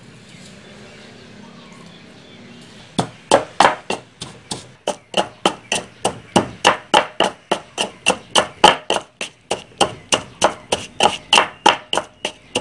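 Pestle pounding garlic, chili and sugar into a paste in a wooden mortar: quick, even thuds, about three a second, starting about three seconds in.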